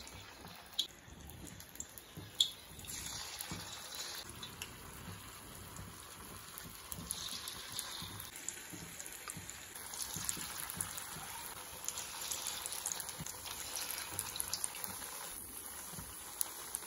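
Batter-coated suzhiyam balls deep-frying in hot oil in an iron kadai: a steady sizzle with a few sharp pops in the first seconds, growing fuller as more balls go into the oil.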